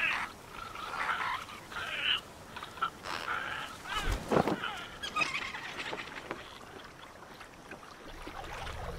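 Sound-designed calls of hatchling azhdarchid pterosaurs: a scatter of short, squeaky chirps and squawks over the first five seconds or so, with a low thud about four seconds in. The calls then thin out to quiet ambience, and a low rumble starts to rise near the end.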